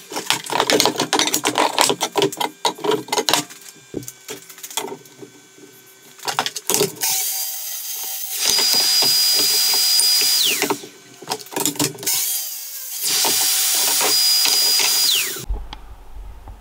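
Festool plunge track saw cutting oak boards along its guide rail, run twice, each time ending with the motor whine falling in pitch as the blade winds down. Before the first cut, a few seconds of clattering knocks from wood being handled.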